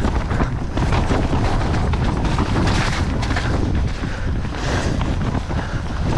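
Wind rushing over the microphone while riding a downhill mountain bike down a wet trail, with the bike clattering and knocking over rough ground throughout.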